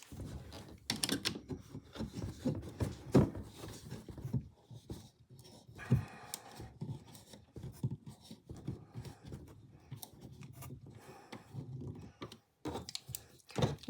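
Irregular clicks, knocks and scraping of a screwdriver and small hardware being worked while a small easel is put together, with a stretch of scraping about six seconds in.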